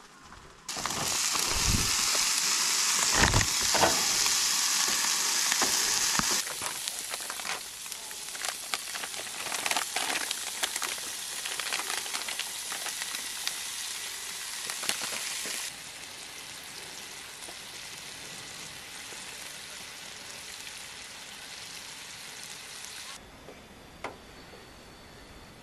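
Steak and vegetables frying in a pan on a camp stove. A loud sizzle with many small crackles starts suddenly about a second in, then settles to a quieter sizzle that drops further in steps later on.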